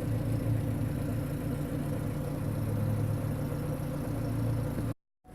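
1996 Suzuki X-90's 1.6-litre four-cylinder engine idling steadily. The sound cuts out completely for a moment near the end.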